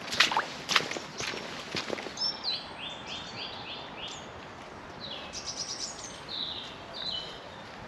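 Footsteps on a wet, muddy path for the first two seconds, then songbirds singing: short repeated high notes, several a second, with trills between them.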